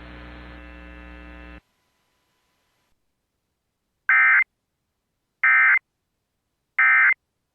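Emergency Alert System end-of-message SAME data tones: three identical short, loud bursts of buzzing digital data, about a second and a half apart, closing the alert. Before them a faint hum cuts off about a second and a half in.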